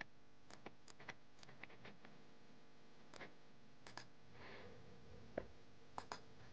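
Faint, irregularly spaced computer mouse clicks, about a dozen, over near-silent room tone.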